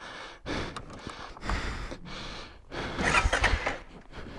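Electric starter cranking a Honda ATV's engine in several short tries, the engine failing to catch.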